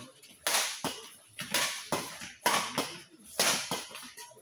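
Badminton rally: rackets striking a shuttlecock, about eight sharp smacks at roughly half-second intervals, each with a short ring-out.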